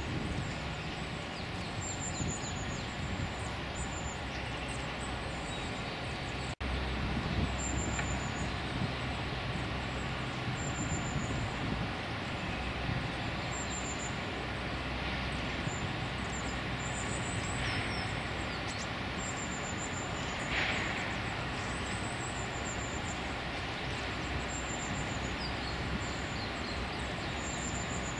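Steady outdoor background: a low rumble of distant road traffic under an even hiss, with a faint high chirp repeating every second or two.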